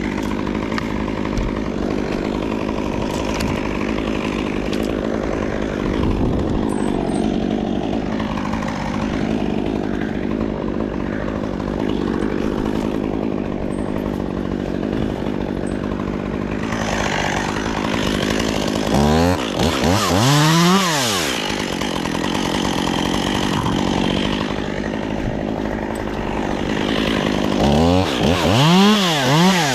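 Two-stroke chainsaw running steadily at idle, then revved up and let back down about two-thirds of the way through, and blipped several more times near the end.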